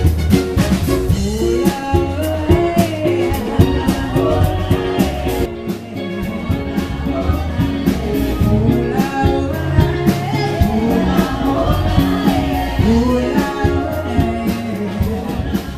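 Live band playing upbeat R&B dance music: drum kit keeping a steady beat under electric guitar, keyboard and singers.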